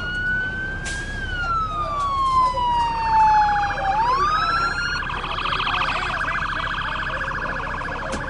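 Emergency vehicle sirens: one slow wail that rises, falls over about three seconds and rises again, joined about five seconds in by a second siren on a rapid yelp.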